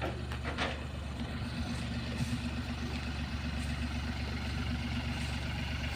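An engine idling steadily, with a couple of sharp knocks in the first second.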